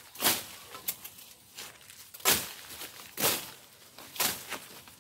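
Short rustling swishes through weeds and brush, about one a second.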